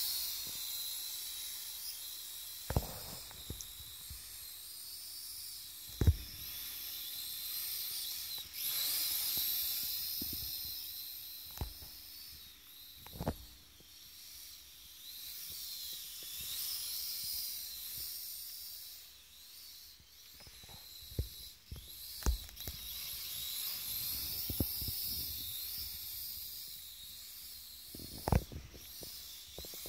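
UDI RC U817 toy quadcopter's small motors and propellers whining high-pitched, the pitch wavering up and down as it flies and flips. Several sharp knocks are scattered through it.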